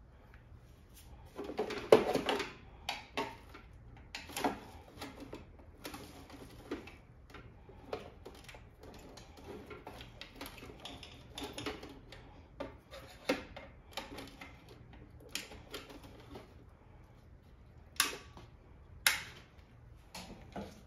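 Irregular clicks, taps and knocks of hands and tools handling an espresso machine's electrical switch and wiring, busiest about two seconds in, with two sharp clicks near the end.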